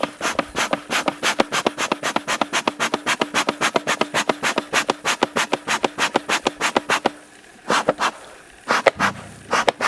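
Bee smoker bellows pumped rapidly, about five or six quick puffs of air a second, to get the fuel smoking well. The pumping stops for a second or so about seven seconds in, then a few more puffs come near the end.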